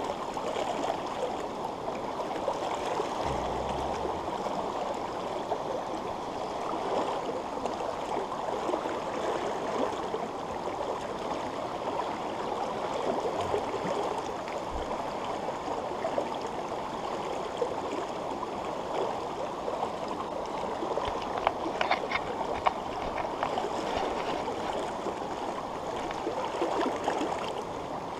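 Shallow, rocky trout stream flowing steadily over stones, a continuous rush of water close by. There is a brief low thump a few seconds in and a few sharp clicks about three-quarters of the way through.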